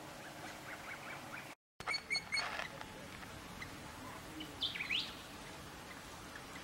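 Birds calling outdoors: a quick run of three short chirps about two seconds in, then a brief sweeping call around five seconds in, over a faint steady background.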